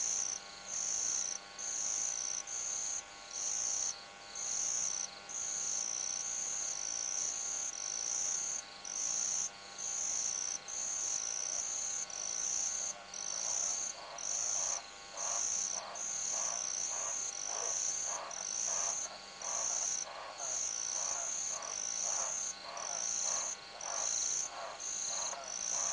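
Night insects trilling in high-pitched, evenly spaced bursts, about three every two seconds. From about halfway through, frogs join with a lower, pulsing call in a similar rhythm.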